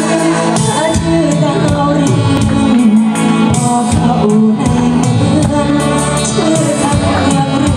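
A woman singing a Thai song through a microphone and PA, over loud amplified backing music with a steady beat.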